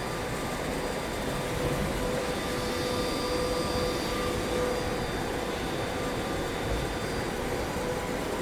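Air-cooled all-in-one laser welding machine running, a steady fan-like whir with a few steady whining tones over it.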